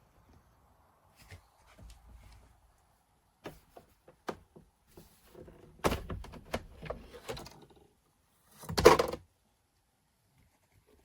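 Clicks and knocks of a Nespresso Vertuo Pop+ coffee machine being handled, growing busier in the middle, then one loud thump about nine seconds in.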